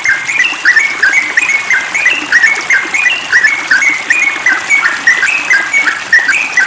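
Yellow-vented bulbul (trucukan) singing a rapid, unbroken run of short bubbly notes, several a second, without pauses: the continuous 'ropel' style of song.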